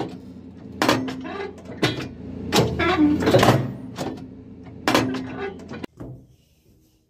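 Hydraulic delimber knives on a Cat 559B log loader cycling, with several loud metal clanks over the steady running of the machine's engine and hydraulics. The sound cuts off abruptly about six seconds in.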